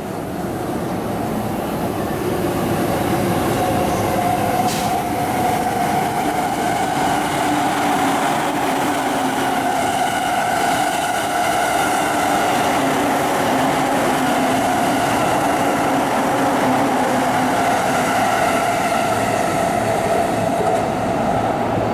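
JR East electric commuter train running past: the rumble builds over the first two seconds, then holds steady with a sustained whine.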